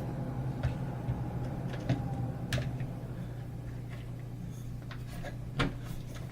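A handful of scattered clicks and light knocks as the August Smart Lock Pro's body is fitted onto its mounting plate over the deadbolt, the loudest near the end, over a steady low hum.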